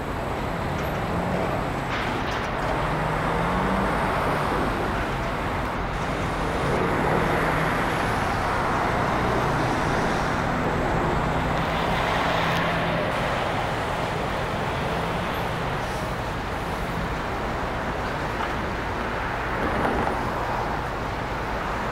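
City street traffic noise: passing cars and trucks, swelling and fading slowly, with a low engine hum under it through the first two-thirds.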